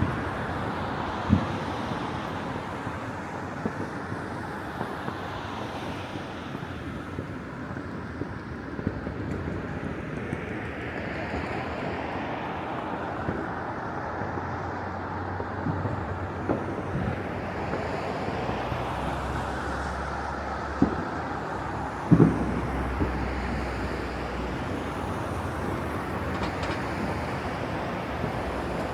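Distant fireworks going off: a few scattered sharp bangs, the loudest about 22 seconds in, over a steady rumble of city traffic and wind.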